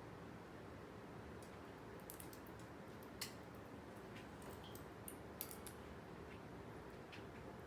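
Faint, scattered sharp clicks and ticks over a low, steady background hum. The loudest click comes about three seconds in and another about five and a half seconds in.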